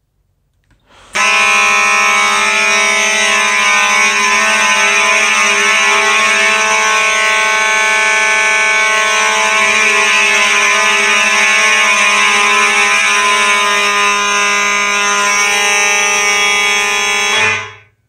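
Simplex 2901 fire alarm horns on 4903 strobe plates sounding together in alarm after a smoke detector activation. They make one steady, continuous, so-loud horn tone rich in overtones, which starts about a second in and cuts off suddenly near the end.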